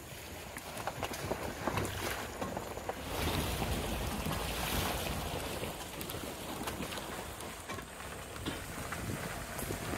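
Wind buffeting the microphone and a low rumble of road noise from a car driving slowly over a rough road, with scattered small knocks and rattles. It gets louder about three seconds in, with a gust of wind hiss.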